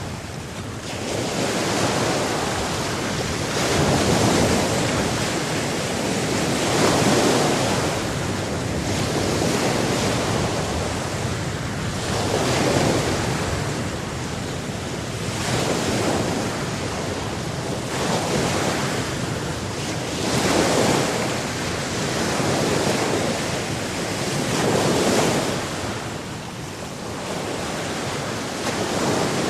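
Sea waves breaking and washing on a shore, the surf swelling and easing every few seconds in a continuous hiss, with some wind noise.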